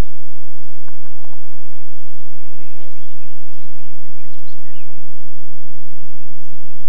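A steady low hum throughout, with a few faint, short bird chirps above it.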